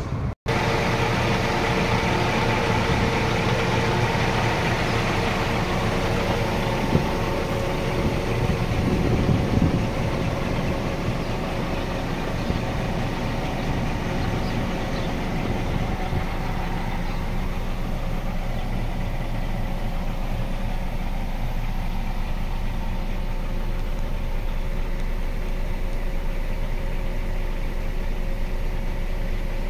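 Scania P 420 truck's diesel engine idling steadily, with a brief dropout just after the start.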